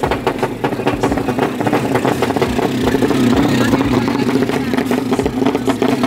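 Drag-race motor scooter engine revving hard, with a fast, rough pulsing exhaust note.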